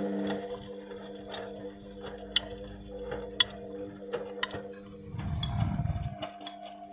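Indesit washing machine in its fill stage. A steady hum drops in level early on, then scattered sharp ticks sound irregularly. A low rumble comes in about five seconds in.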